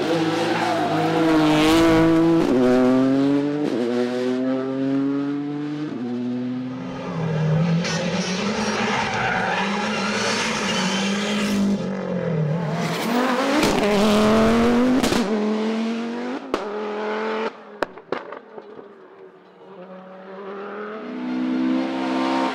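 Rally car engine accelerating hard, its pitch climbing and dropping back with each upshift, followed by a long loud run of varying revs as cars pass. It then fades, with a few sharp cracks about two-thirds of the way through, and another engine rises near the end.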